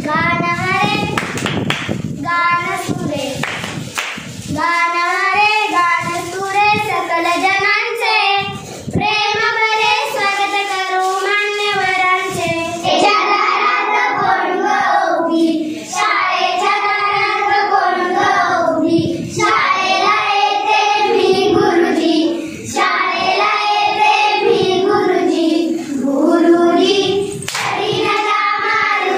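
Children singing a Marathi song together, with some hand claps.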